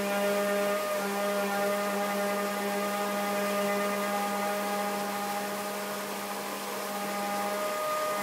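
Saxophone holding one long, steady low note without a break, with higher tones sounding together above it and coming and going, over the rush of a rocky stream.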